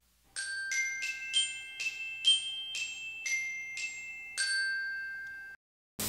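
Intro music: a short melody of about ten ringing glockenspiel-like notes that stops abruptly, followed near the end by a sudden rush of noise.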